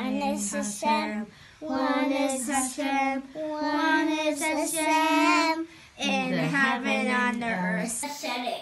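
A young girl singing a Passover song alone, in held notes with short breaks between phrases.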